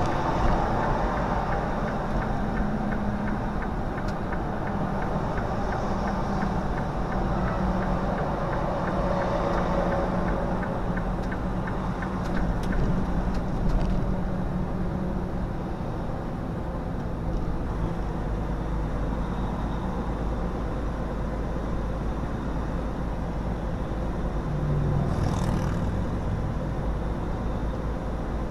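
Semi truck on the move, heard from inside the cab: a steady diesel engine drone under road and tyre noise. A few faint clicks come a little under halfway through, and a brief change in the engine's note about 25 s in.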